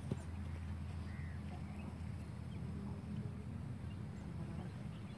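Open-air background: a steady low rumble with a few faint bird chirps.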